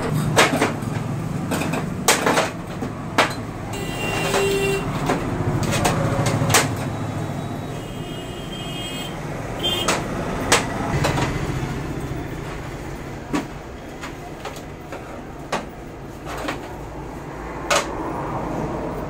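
Small steel moulds clinking and knocking against a large aluminium tray as soan papdi floss is pressed into them by hand, a dozen or so scattered sharp knocks over a steady low hum.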